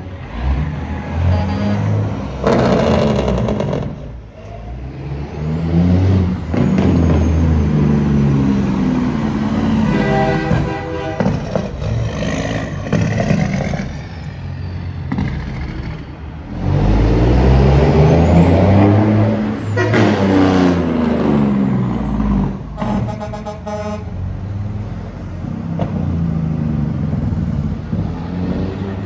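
Diesel semi trucks passing one after another, their engines revving up and down in long sweeps. Truck air horns blast several times, with long blasts about ten seconds in and past twenty seconds.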